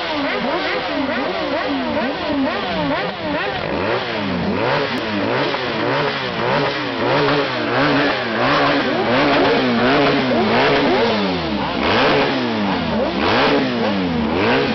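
Several motorcycle engines revved over and over, their sounds overlapping, each rising and falling in pitch in quick blips.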